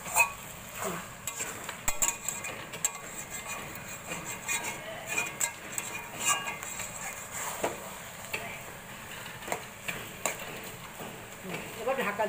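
A metal spatula stirring and scraping a thick, wet mix of taro stolons and fish roe around a steel wok, with irregular scrapes and knocks against the pan.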